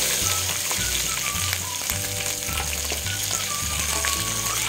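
Onion pieces and large tomato chunks sizzling in hot oil in a kadhai, with a spatula stirring them and clicking against the pan now and then.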